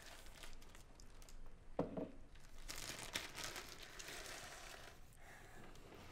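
Hands rummaging through a dresser drawer, clothes rustling and something crinkling. Two short knocks come near two seconds in, then a longer spell of rustling and crinkling.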